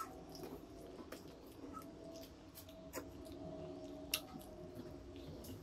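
Faint sounds of eating by hand from steel plates: fingers working rice and fish against the metal, with about five scattered small clicks and taps.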